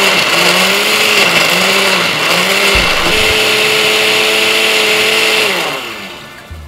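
Countertop electric blender puréeing soaked dried chiles, roasted tomatoes, onion and garlic into a red salsa. The motor's pitch dips and recovers about once a second while the chunky load churns, then holds steady and higher as the mix turns smooth. Near the end it winds down as it is switched off.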